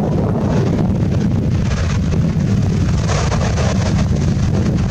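Wind buffeting the microphone, a steady low rumbling noise.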